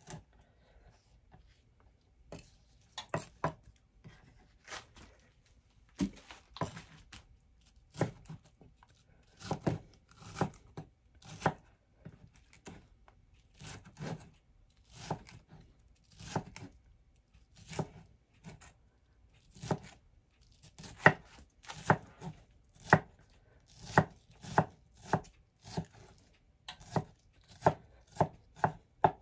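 Chef's knife dicing a red bell pepper on a wooden cutting board: sharp knocks of the blade on the board, about one a second at first, then a quicker, steadier run of about two chops a second in the second half.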